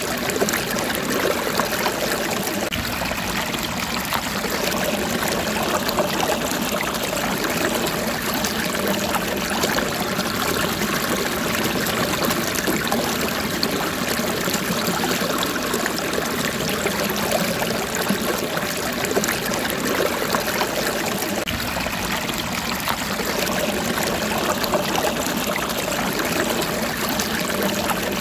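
Steady sound of running water, like a stream, without a break.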